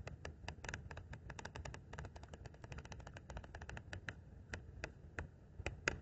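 Pages of a paper flip book flicking off the thumb one after another in a fast run of papery clicks, slowing to a few separate flicks near the end.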